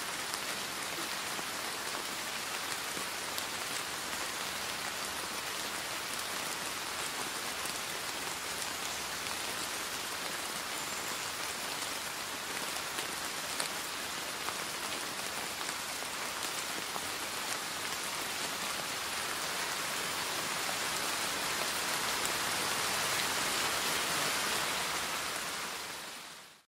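Steady rain falling on wet paving and into a puddle, with scattered separate drop impacts. It grows slightly louder near the end, then fades out quickly.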